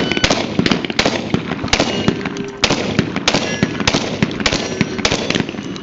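Rapid gunfire from a shooter running a 3-gun match stage: about fifteen shots in under six seconds at an uneven pace, some followed by a brief ringing tone.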